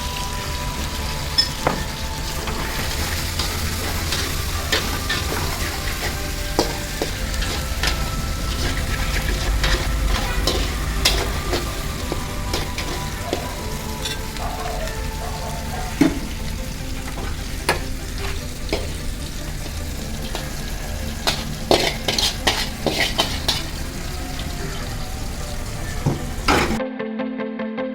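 Restaurant kitchen noise: a steady frying sizzle with scattered clinks and clatters of utensils and dishes.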